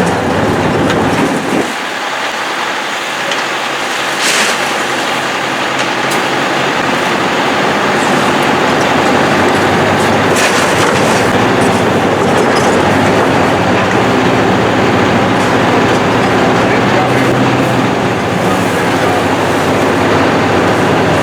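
Heavy demolition machinery tearing down a building: a steady engine run under continuous clanking, scraping and crunching of metal and debris.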